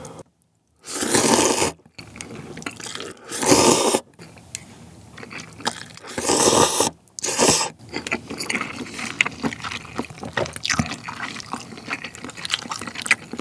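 A person slurping instant ramen noodles in a few loud pulls over the first half, then chewing them with small wet clicks.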